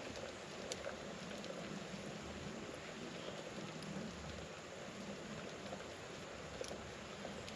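Pot of acorns in water at a rolling boil over a campfire: a steady bubbling hiss, with a few sharp ticks, one about a second in and one near the end.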